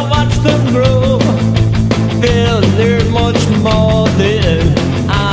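A song with a steady drum beat, sustained bass notes and a melody line that slides up and down in pitch.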